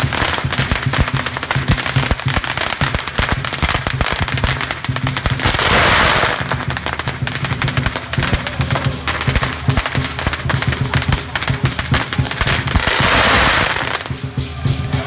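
Strings of firecrackers going off in fast, continuous cracks, with two louder flurries, over the lion dance drum and cymbals. The cracking thins out near the end.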